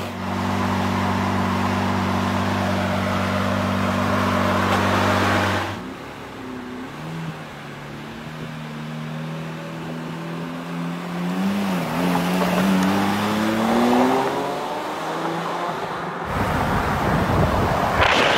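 Lamborghini Reventon Roadster's V12 engine idling steadily, then pulling away and accelerating with a rising pitch, easing briefly about twelve seconds in before climbing again. Near the end the car passes close by with a loud rush of noise.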